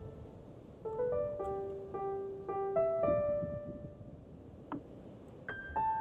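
Background piano music: a slow melody of held notes that thins out past the middle and picks up again near the end.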